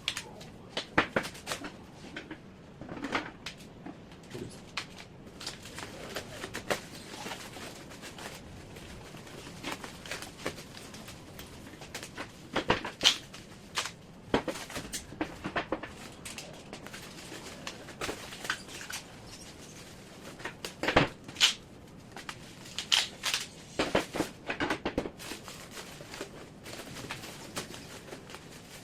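Paintless dent repair rods and their case being handled during packing: irregular clicks and knocks, the loudest about 13 and 21 seconds in.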